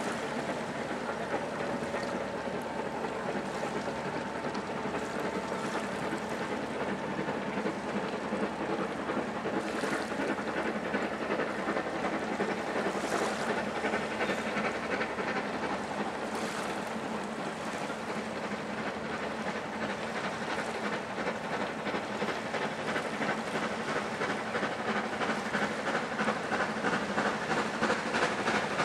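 GWR 42xx class 2-8-0 tank steam locomotive hauling a train of coaches, with steady chuffing and the running noise of the coaches, growing louder near the end as it approaches.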